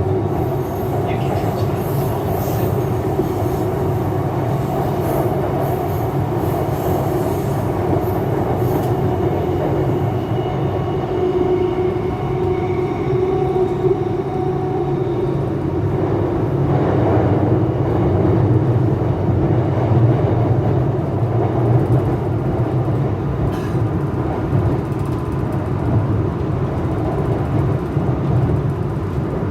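Type 09A02 metro electric multiple unit running between stations, heard inside the passenger car: a steady loud rumble of wheels and running gear, with a faint high whine around the middle.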